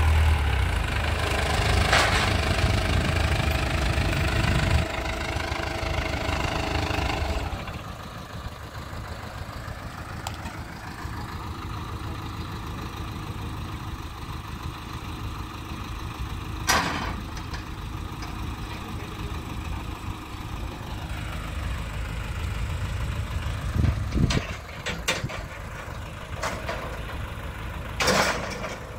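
Diesel engine of a crawler bulldozer or dump truck idling, loud at first and dropping to a quieter idle about seven seconds in. A few sharp knocks stand out over it.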